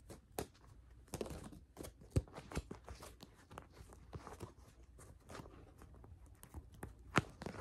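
Tarot cards being shuffled and handled by hand: a run of irregular soft card clicks and snaps, with brief stretches of card sliding against card.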